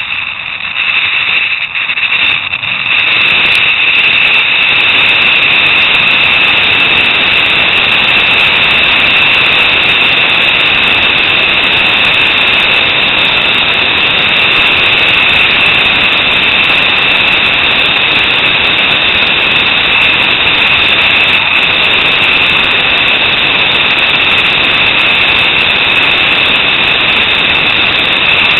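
Zip-line trolley's pulleys running at speed along the steel cable, with a rushing of air: a loud, steady high-pitched whine that builds over the first few seconds as the rider picks up speed, then holds level.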